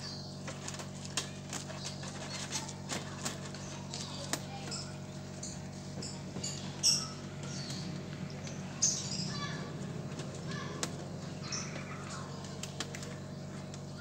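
Small clicks and ticks of electrical wires being handled and fed against a washing machine's plastic casing, over a steady low hum. A few brief high-pitched chirps stand out, the loudest about seven and nine seconds in.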